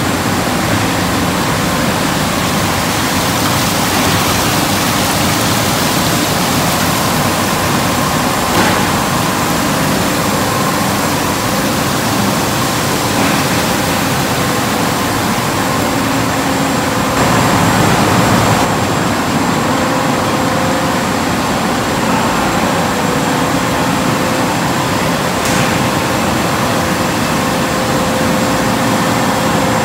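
Steady running noise of a NON Food Machinery shrimp cooking line in operation: motors, conveyor belts and water spray bars together, with a faint steady hum under the noise. It gets briefly louder about seventeen seconds in.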